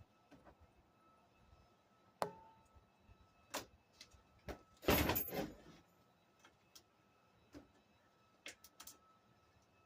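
Scattered knocks and light metallic clinks of tools and bolts being handled while a scooter deck is fitted to its frame, one clink ringing briefly about two seconds in and the loudest cluster of knocks about halfway through.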